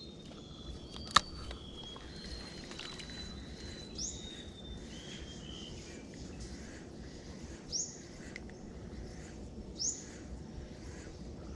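Quiet outdoor ambience with a bird calling several times in short, upward-hooked chirps and a few held whistles, plus a single sharp click about a second in.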